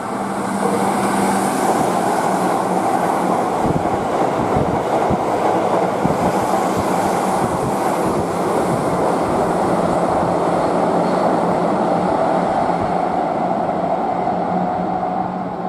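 Keihan Main Line electric train running along the station track: a loud, steady rumble that swells in at the start and fades near the end, with a few wheel knocks over rail joints a few seconds in.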